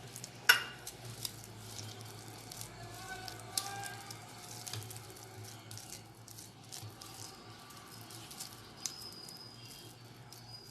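Quiet kitchen handling sounds of oil being added to and mixed through the spiced yam: a sharp clack about half a second in, then soft scattered taps and clicks over a low steady hum.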